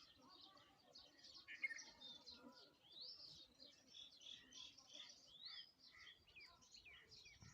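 Faint chorus of small songbirds chirping and twittering, many short notes overlapping, some sliding up or down in pitch.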